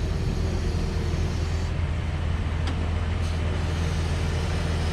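Bulk feed delivery truck running steadily with a constant low hum, at the end of unloading pig feed into a farm silo.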